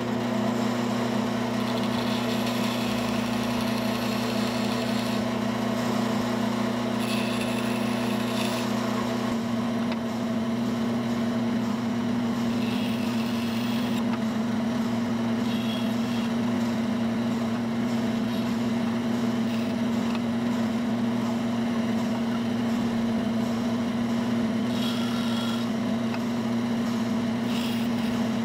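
Bandsaw running with a steady motor hum while its narrow blade cuts teeth into a small gear blank, with several brief higher-pitched rasps as the blade bites.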